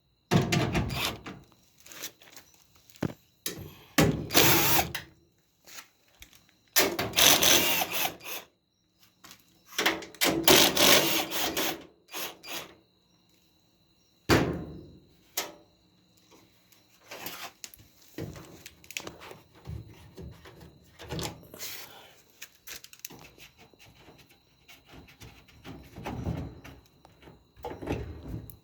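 A power drill-driver running out sheet-metal screws from a dryer's cabinet in several short bursts of one to two seconds, with a sharp knock about halfway through and light clattering of metal parts being handled afterwards.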